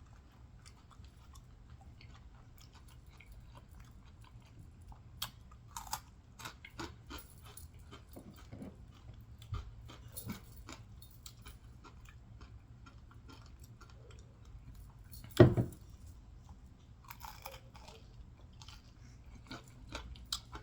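Close-up chewing and crunching of fried catfish, with small wet mouth clicks throughout. One much louder short sound comes about fifteen seconds in, and dogs bark faintly in the background.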